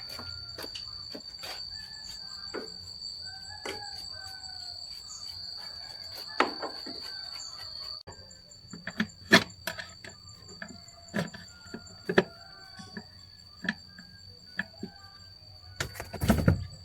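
A steady high-pitched insect drone with short bird chirps, broken by scattered sharp clicks and taps. A louder burst of clatter comes near the end.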